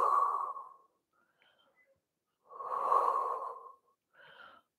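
A woman breathing audibly close to the microphone while holding a deep stretch: one breath at the start and another about two and a half seconds in, each about a second long, with a fainter short one near the end.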